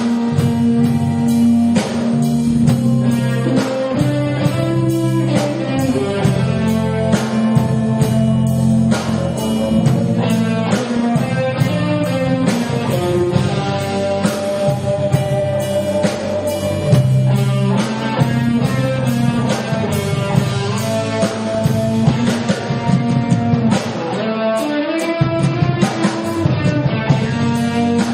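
Live rock band playing: electric guitar over bass and a drum kit.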